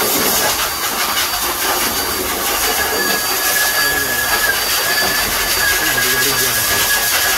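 Pet blow dryer running steadily, a loud rushing hiss of air with a thin steady whine from its motor.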